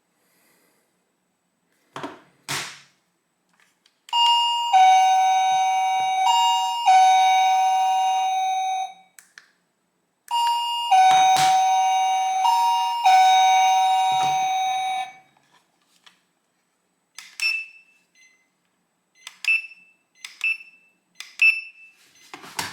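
SilverCrest wireless doorbell chime playing its electronic multi-note tune twice, each time for about five seconds, after a couple of clicks. Several short high beeps with clicks follow near the end.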